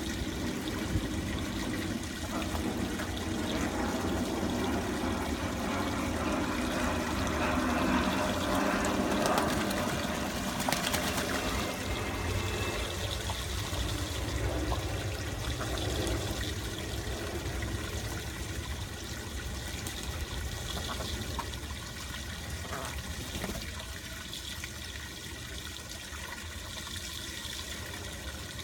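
Water running and splashing from a hose jet spraying onto a flooded wooden deck, with ducks bathing in it. It swells a little about a third of the way in, then eases off slightly.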